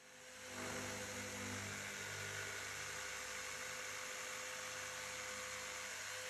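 Corded jigsaw running steadily as it cuts a click vinyl floor plank, heard faintly as an even hum and hiss that fades in over the first half-second.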